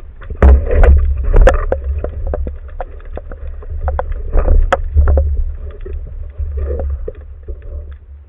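Water sloshing and splashing, with sharp knocks and a deep continuous rumble, fading toward the end.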